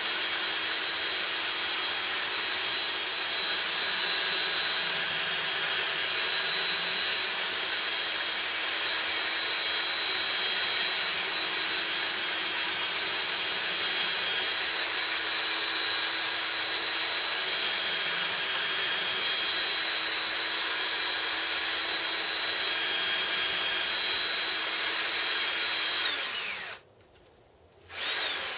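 Motor-driven machine spindle running steadily with a high whine, its new bearings being run in. It cuts out for about a second near the end, then runs again.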